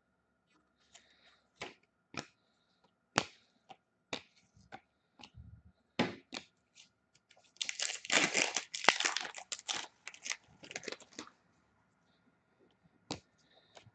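A hockey card pack being torn open and its cards handled: scattered sharp clicks and snaps, then a burst of crinkling and tearing wrapper about eight seconds in, followed by a few more clicks.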